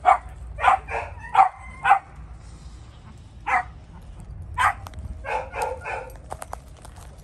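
Dogs barking in short, sharp barks: about five in quick succession at the start, two more spaced out in the middle, then a quick run of barks about five seconds in, over a steady low rumble.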